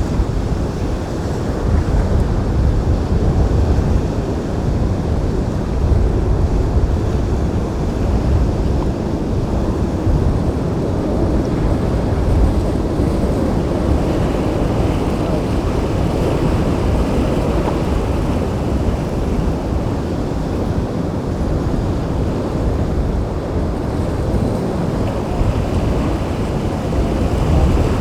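Wind buffeting the microphone over the steady wash of waves and surf.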